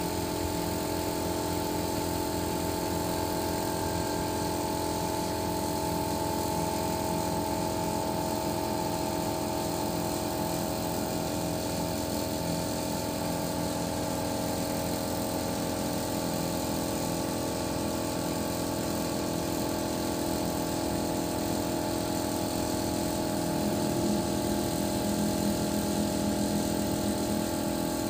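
Boom lift truck's engine idling steadily, a low even hum with a slight change in tone near the end.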